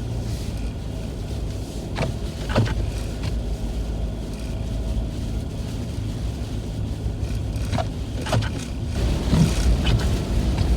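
Car crawling slowly along a snowy road, heard from inside the cabin: a steady low engine and road drone, with a few short clicks or knocks about two seconds in and again near eight seconds.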